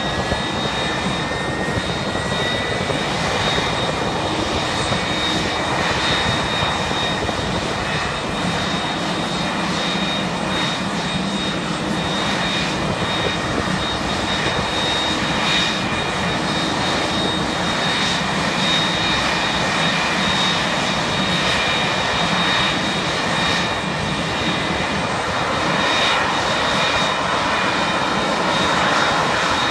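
McDonnell Douglas MD-11 jet engines running on the ramp: a steady high whine over a continuous rushing noise, with a fainter tone rising slightly in the first few seconds.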